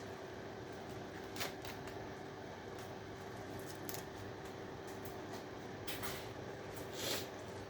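A few sparse light clicks and scrapes of small scrap electrical parts being handled, the loudest near the end, over a faint steady hum.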